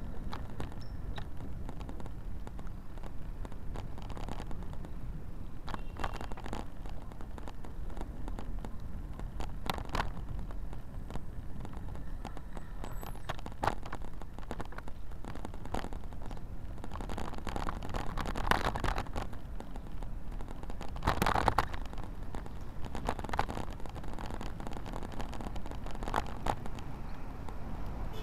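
Riding noise from a camera mounted on a bicycle: a low rumble of wind and road, with frequent clicks and rattles from the bike and camera mount over the pavement. There are two louder rustling bursts in the second half.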